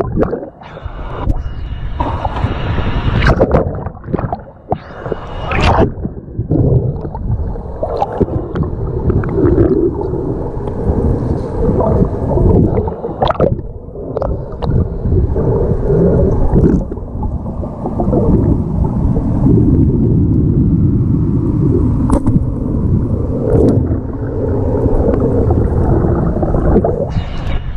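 Muffled underwater sound picked up by a camera below the surface: a steady low rumble of moving water with gurgles and scattered sharp clicks.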